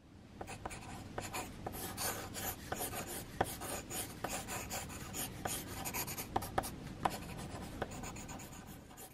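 Pencil lead scratching on paper in many quick, short strokes as a drawing is shaded. The sound fades in over the first second.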